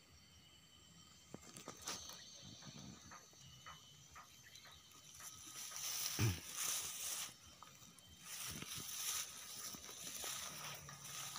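Close rustling with scattered soft clicks and a low thump about six seconds in. It comes in two hissy stretches in the second half.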